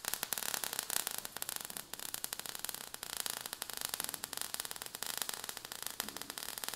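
Faint, steady crackling sound effect of falling sparks: a dense run of tiny rapid crackles with no tone.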